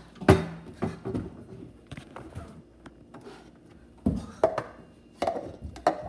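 A kitchen cabinet door knocking as it is opened, then plastic cups clacking as they are taken down and handled on a countertop. The sharpest knock comes about a third of a second in, with scattered clacks after it and another group near the end.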